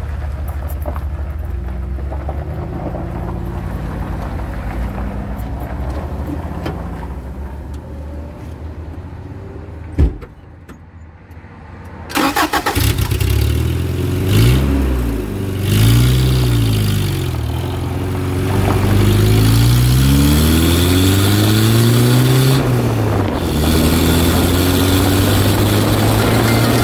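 Vehicle engine heard from under the chassis: a steady low idle, a single thump about ten seconds in, then a brief quieter lull. The engine starts about two seconds later, revs up and down a few times, and pulls away, its pitch rising as it gathers speed before it settles to a steady run.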